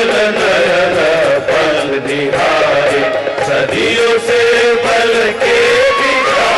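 A Hindi devotional bhajan performed live: singing in a wavering melodic line over instrumental accompaniment with a regular percussive beat.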